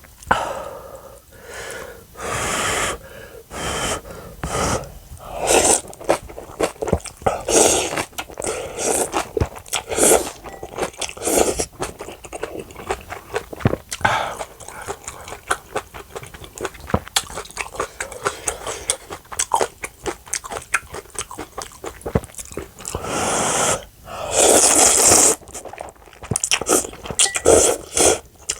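Close-miked eating sounds: irregular chewing and crunching of food, with a longer noisy stretch near the end.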